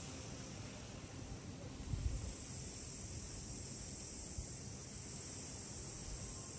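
Steady high-pitched insect chorus of an evening, with a brief low thump about two seconds in.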